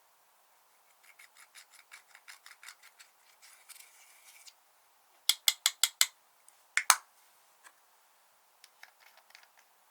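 Slime being worked by hand, clicking and popping: a run of small quick clicks, about six a second, then five loud sharp pops in quick succession about five seconds in, one more a second later, and a few faint clicks near the end.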